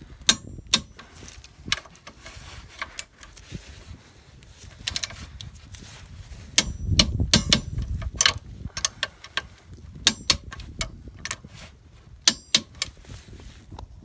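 Ratchet wrench and socket clicking and clinking on the nuts that hold a suspension lower arm's ball joint to the hub carrier, in irregular metallic clicks. Some clicks have a short ring, and there is a denser run of clicks about seven seconds in.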